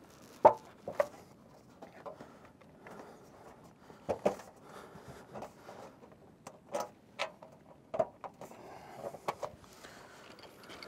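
Scattered light taps and clicks of a flat sheet-metal piece being pressed and folded shut by hand over the Z-bar on a standing seam metal roof. The sharpest knock comes about half a second in, others at irregular intervals.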